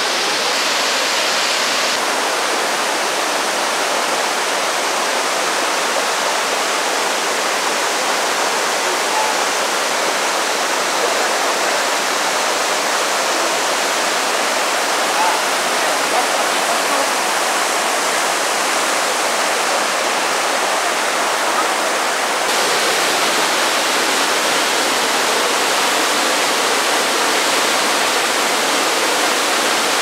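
Jōren Falls and its rocky stream: a steady rush of falling and flowing water, with a slight shift in tone about two seconds in and again about two-thirds of the way through.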